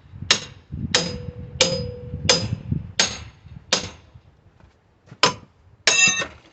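Small sledgehammer blows hammering apart a wooden pallet to free a stubborn, weathered board. There are six steady blows about two-thirds of a second apart, some leaving a short metallic ring. After a brief pause comes one more blow, then a ringing metallic clang near the end.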